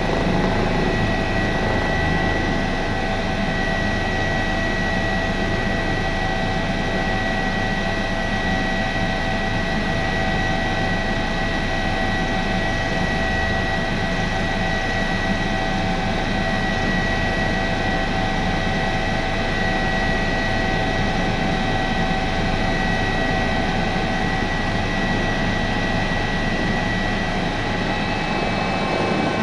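Airbus H145's twin Arriel 2E turboshaft engines and rotor running, heard inside the cockpit: a constant turbine whine with a high steady tone over a dense rushing noise.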